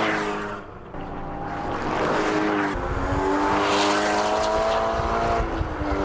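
Porsche Cayman GT4's naturally aspirated 3.8-litre flat-six at full throttle on track. The engine note falls as the car sweeps past, then climbs steadily under hard acceleration, with a drop in pitch near the end as it shifts up a gear.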